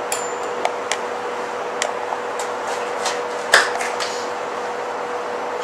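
Steady hum of kitchen machinery with one held tone, under scattered light taps and clicks of a knife and a green apple being handled on a plastic cutting board, one sharper knock about three and a half seconds in.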